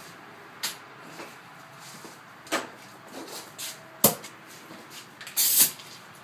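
A few separate metal clanks and knocks from hand tools working on a wheel stud and lug nut, the sharpest about four seconds in with a short ring, and a longer scraping rattle near the end.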